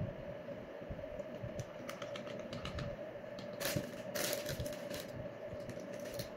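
A plastic potato-chip bag crinkling as it is handled and a hand reaches in for a chip, the loudest crackling about three and a half to five seconds in. Scattered light clicks and taps come before it, and a steady hum runs underneath.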